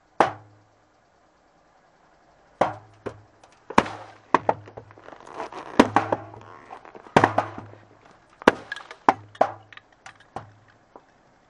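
Full aluminium drink cans bursting one after another under a car tyre: about a dozen sharp pops at irregular intervals, several followed by a brief hiss of spraying drink.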